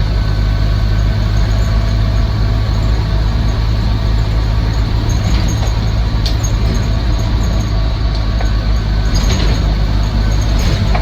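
Land Rover Series IIa's 2.25-litre four-cylinder petrol engine and drivetrain running steadily on the move, in overdrive, with a slight extra whine from the gearbox, which is typical of this overdrive. A few brief rattles come in about six and nine seconds in.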